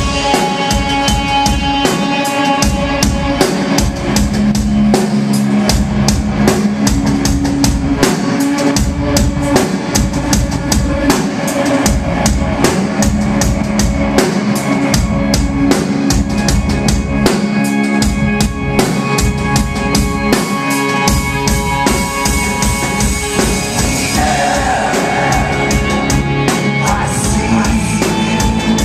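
Live rock band playing an instrumental passage: a drum kit beats steadily, with bass drum and snare, under sustained electric guitar chords.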